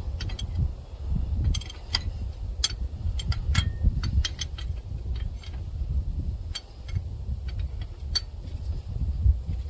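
Hand wrench and metal tools working fittings on the top end of a Caterpillar 3406B diesel engine: irregular sharp metallic clicks and ticks, over a low rumble.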